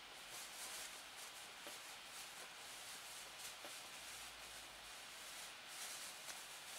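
Faint rustling and crinkling of a thin plastic bag as a kitten moves about with its head inside it, with scattered light crackles.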